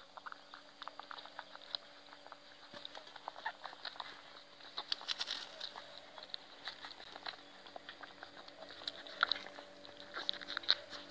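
Puppies suckling at a mother dog's teats: rapid wet clicking and smacking, several small clicks a second, with louder bunches at times.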